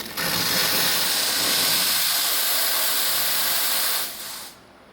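Commercial espresso machine's steam wand opened fully, a loud steady hiss of steam for about four seconds, then shut off and tailing away quickly.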